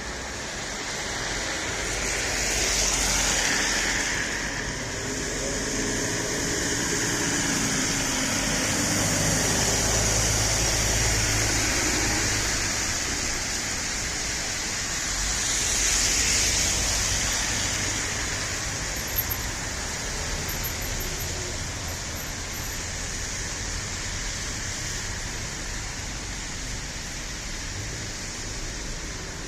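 Road traffic: vehicles passing over a steady background of tyre hiss and engine noise. One passes loudly about three seconds in and another about sixteen seconds in.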